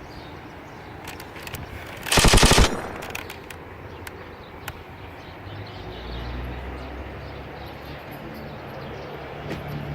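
A half-second burst of rapid automatic fire, a quick string of sharp shots, a little over two seconds in. Scattered faint ticks follow, and a low hum sets in about halfway through.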